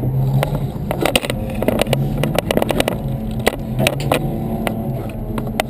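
Race-prepped car's engine running steadily at low revs, heard from inside the stripped cabin, with frequent irregular clicks and rattles over it.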